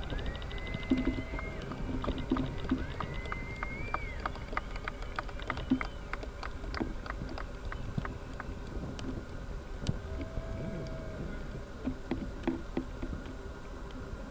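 Fireworks: two whistling shells rise in pitch and hold a shrill note, then a rapid run of crackling pops, about four or five a second, over a low rumble.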